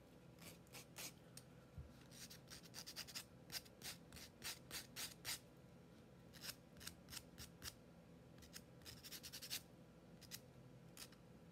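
Faint sanding strokes of a sanding sponge on the edges of a small paper-covered wooden cutout, shaping the paper to the wood. The strokes are short and quick and come in irregular runs with brief pauses.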